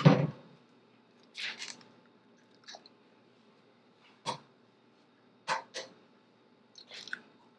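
Eggs being cracked open: about five short, crisp eggshell cracks and taps, some in quick pairs, spread over several seconds.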